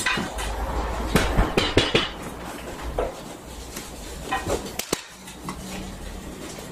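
Irregular light clicks and knocks of a steel electrical back box and a spirit level against a plasterboard wall, as the box is held in place and traced around with a pencil.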